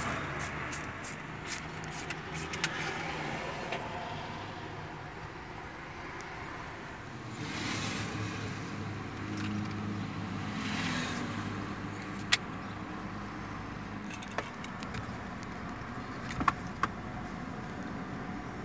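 Scattered sharp plastic clicks and taps as the Ford Raptor's steering-wheel switch bezels and trim pieces are handled and unclipped. Underneath runs a steady hum of street traffic, which swells briefly twice around the middle.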